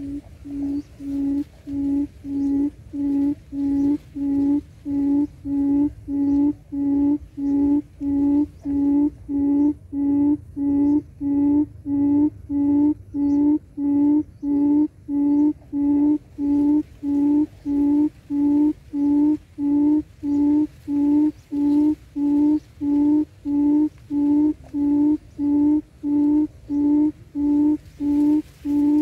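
Wild quail (cút rừng) decoy call used to lure birds to a trap: a loud, low hoot repeated at an even pace of about one and a half notes a second, every note on the same steady pitch.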